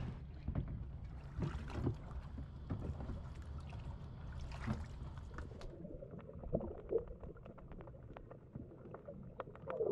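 Water splashing and dripping as a plastic sieve is dipped beside a kayak to scoop out a floating plastic bottle, with small knocks and clicks. About halfway through the sound turns duller, as if heard from underwater.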